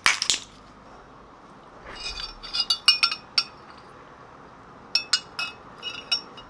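A metal straw clinking against a glass mug of water in quick runs of bright, ringing clinks, about two seconds in and again near the end. Right at the start, a short crackle of a capsule being pushed out of its blister pack.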